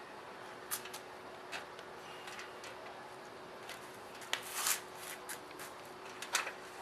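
Light handling noise from fitting the canopy onto an RC helicopter and putting on its canopy nuts: a few scattered small clicks and a short rustle of plastic parts about two-thirds through. A faint steady hum runs underneath.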